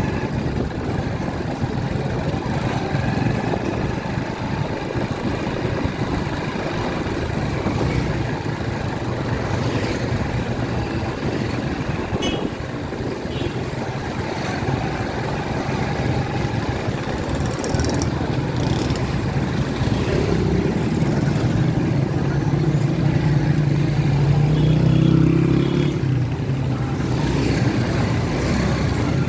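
Busy street traffic dominated by motorcycle engines running steadily, with one engine revving up and down in pitch in the last third. A single sharp click about twelve seconds in.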